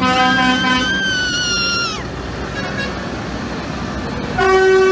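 Horns on passing tractors: a few short toots, then a held tone that slides down and stops about two seconds in, then a loud chord-like air horn from about four and a half seconds, over the rumble of diesel tractor engines.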